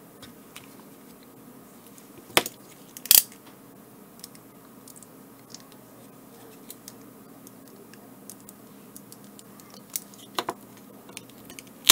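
3.7 V battery cell being pried loose from the plastic shell of an HME BAT50 headset battery pack: scattered small clicks and crackles, with two sharp cracks a couple of seconds in and another near the end as the dots of glue holding it give way.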